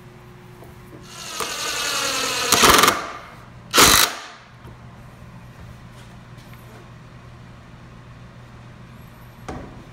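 Cordless drill boring into a pine block: the motor speeds up with a rising whine and runs for about a second and a half, then comes one short, louder burst of drilling about four seconds in.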